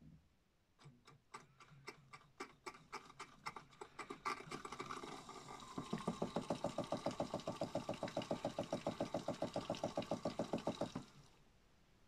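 Modified Miele W1 toy washing machine spinning up: separate clicks come faster and faster, blend into a whir, then settle into a steady fast pulsing of about ten beats a second that stops suddenly near the end.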